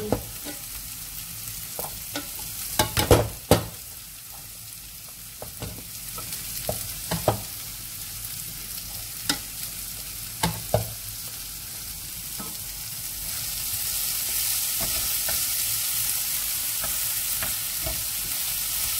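Wooden spatula stirring and fluffing cooked rice in a pot, with scattered scrapes and knocks against the pot, the loudest about three seconds in. From about two-thirds of the way through, a steady frying sizzle comes up.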